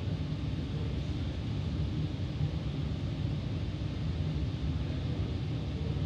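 Steady low rumble and hiss of running noise inside the passenger cabin of an E 32000 electric commuter trainset.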